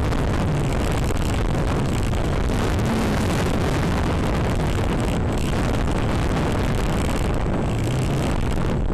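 Steady rushing noise and rumble picked up by a small camera strapped to an electric RC airplane as it rolls out along asphalt on its landing wheels: wind on the microphone mixed with the wheels running on the pavement.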